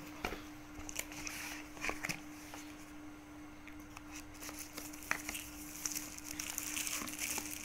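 Handling of a new mobile phone's cardboard box and its thin plastic sleeve: light rustling and crinkling with scattered small clicks as the box is opened and the phone lifted out. A faint steady hum runs underneath.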